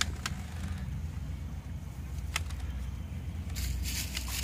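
A steady low motor hum, with two light clicks and a rise of rustling noise near the end.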